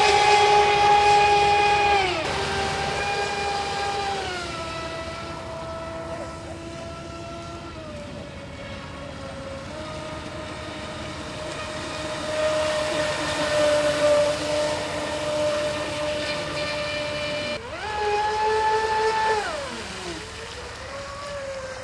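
Radio-controlled speedboat's motor giving a high, steady whine at speed, with water hissing under it. The whine drops in pitch in steps as the throttle eases, jumps sharply higher near the end as the throttle is opened again, then glides back down.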